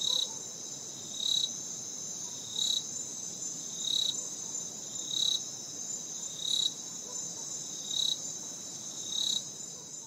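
Night insects calling: a steady high-pitched trill with a louder short chirp repeating about every 1.3 seconds.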